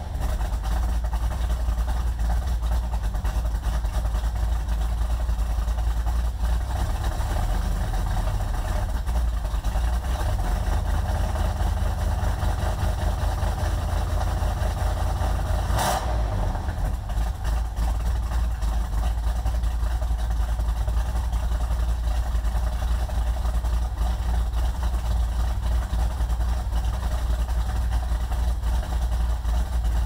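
Small-block Chevy 350 V8 of a 1990 Camaro idling steadily, heard at the tailpipes of its true dual exhaust with freshly fitted Thrush Turbo mufflers. It is a deep, even rumble with no revving, and there is a single short click about 16 seconds in.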